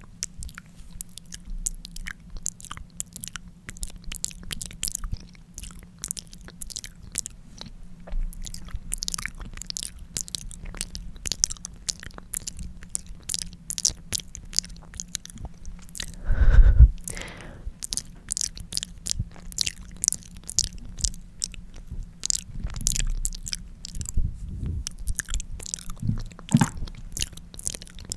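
Close-miked ASMR lip licking: a steady run of small wet clicks and smacks from lips and tongue. About two-thirds of the way through there is one louder, deeper sound.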